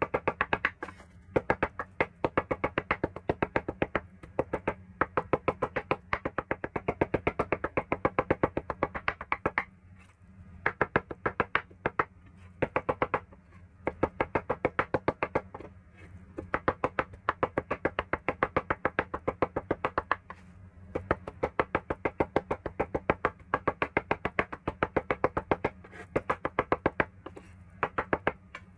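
Chinese cleaver chopping raw peeled shrimp into a mince on a bamboo cutting board: rapid wooden knocks, several a second, in runs broken by short pauses.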